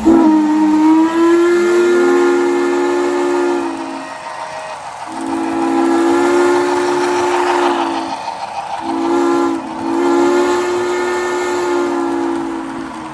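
Steam locomotive chime whistle, a recorded sound played by a model steam locomotive's sound system, blowing a chord in several long blasts with short gaps between them.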